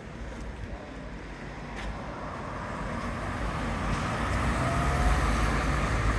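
Street traffic: a motor vehicle's engine approaching, its low hum growing steadily louder.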